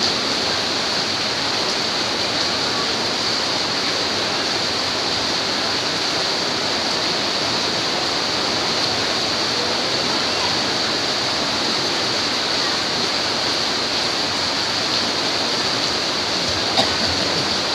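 Heavy rain falling steadily, a dense, even hiss with a brief knock near the end.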